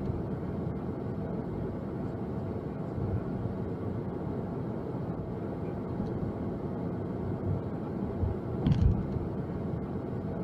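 Steady road and engine noise of a moving car, heard from inside the cabin, with a brief low thump about nine seconds in.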